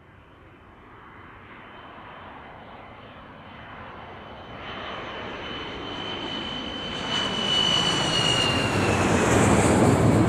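Jet airplane approaching and passing: a rush of engine noise swelling steadily from faint to loud, with a thin high whine that drops in pitch near the end as it goes by.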